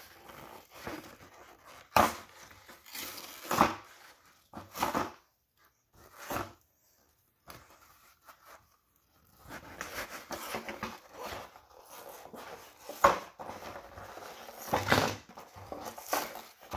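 A cardboard toy box with a clear plastic blister being torn open by hand: irregular ripping and crinkling, with a quieter stretch around the middle.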